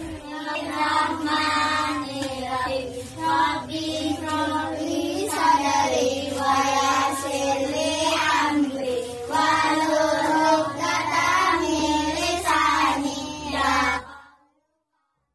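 Voices singing a melodic song over a steady low backing, cutting off suddenly near the end.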